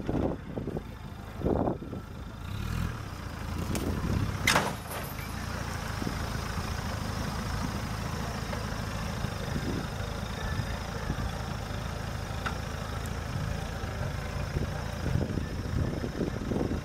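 Land Rover Defender's engine running steadily at low revs as the truck crawls through mud, with one sharp knock about four and a half seconds in.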